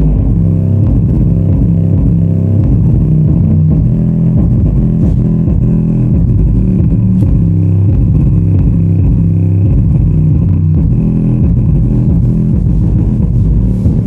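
Bass-heavy music played loud through two 8-inch subwoofers, one a Magnetz, each fed one stereo channel from a stereo subwoofer pre-amplifier and a small 4440 amplifier. Nearly all of the sound is deep bass and low notes, with very little treble.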